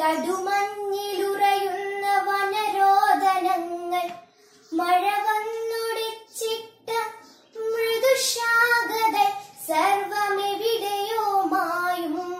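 A girl singing lines of a Malayalam poem unaccompanied, in the melodic style of kavithalapanam recitation. She sings in long held phrases with short pauses for breath between them.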